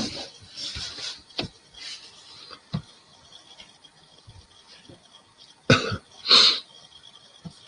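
A man coughing twice into his fist, two short loud coughs about two-thirds of the way in. Before them there is some fainter noise and a few light knocks.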